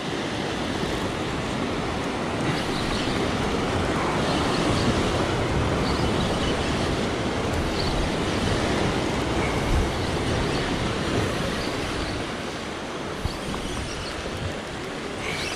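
Surf surging and washing over coastal rocks in a narrow inlet: a steady rushing noise that swells a little in the middle and eases toward the end.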